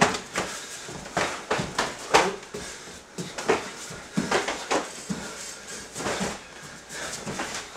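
Full-contact karate sparring: irregular slaps and thuds of bare-knuckle punches and kicks landing on bodies, mixed with the fighters' short grunting exhalations, in a small echoing room.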